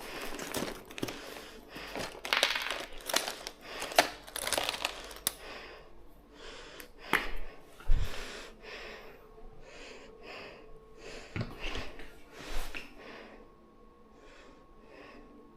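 Small stationery items being rummaged and handled: rustling with sharp plastic clicks and knocks. It is busiest in the first five seconds, then thins to a few scattered clicks.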